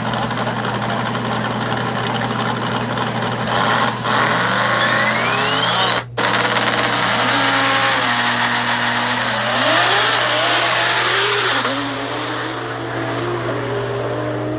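Drag cars on a no-prep drag strip run loud at the line, then launch about four and a half seconds in and accelerate hard down the track. The engine pitch climbs and steps up through the gears before easing off near the end.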